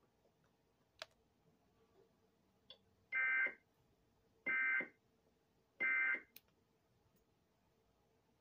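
Emergency Alert System SAME end-of-message data signal: three short, identical warbling two-tone digital bursts about 1.3 s apart, marking the end of a severe thunderstorm warning broadcast.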